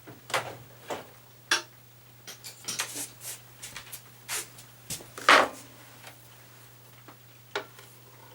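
Irregular clinks, clicks and knocks of hand tools and metal parts being handled while screws are taken out of the engine shroud of a vintage Jacobsen mower motor, with the loudest knock about five seconds in.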